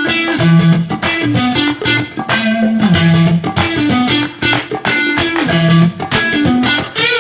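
Background music led by a plucked guitar, with a bass line underneath.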